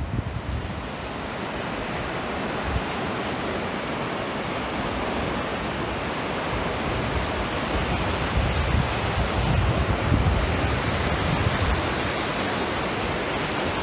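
River water rushing over rapids, a steady, fairly loud hiss of white water, with wind buffeting the microphone in gusts about midway.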